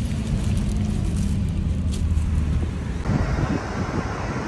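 A moving car's steady low road and engine rumble heard from inside the cabin, with a little paper-bag rustling. About three seconds in it switches abruptly to louder rushing road and wind noise.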